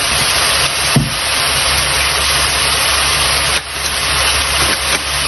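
Ground-beef filling sizzling steadily in a frying pan over a low, steady hum, with a single light knock about a second in.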